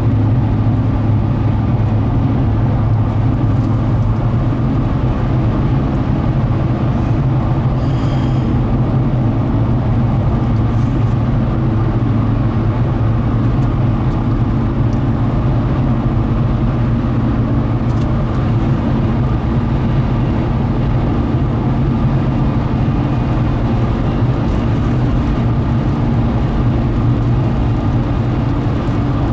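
Steady road noise inside a moving car's cabin: engine and tyre drone with a strong low hum, and a few faint ticks.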